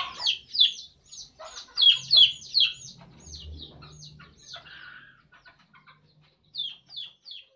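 Caged bantam chickens calling: quick runs of short, high, downward-sliding chirps, several a second, thinning out after about five seconds before a last few near the end.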